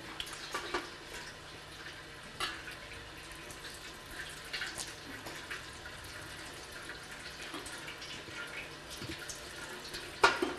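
Water poured from a metal kettle over hands into a small basin, splashing and trickling in small irregular spurts: a ritual hand-washing. A sharper knock comes near the end.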